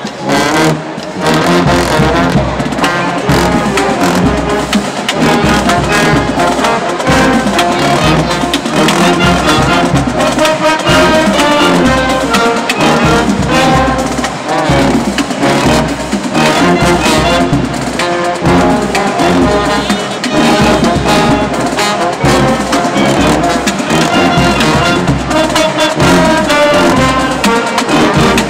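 High school band playing live: trumpets and trombones over drums keeping a steady beat.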